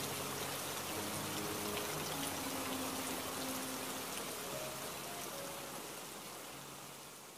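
Steady water-like hiss, like rain or steam, with faint background music under it, fading down over the last few seconds.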